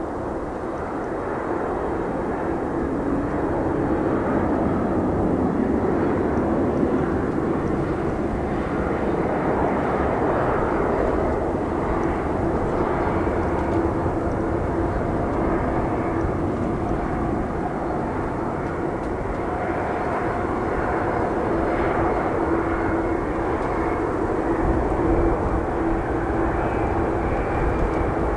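Boeing 787-8 Dreamliner's jet engines running at taxi power, a steady drone with a constant hum, growing a little louder in the first few seconds.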